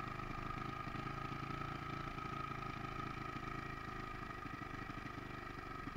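Motorcycle engine idling steadily, with an even rapid pulse and a thin steady whine above it.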